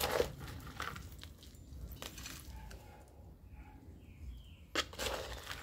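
Terracotta flowerpots knocking and clinking as they are handled and set down, with soil scraping and crunching; sharp knocks at the start and again near the end, the last followed by a short scrape.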